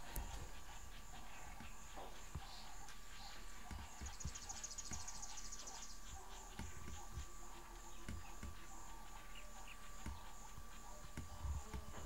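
Outdoor bush ambience: a steady high-pitched insect chorus, with a rapid, brighter insect trill for about two seconds starting around four seconds in. Scattered low thumps are heard throughout.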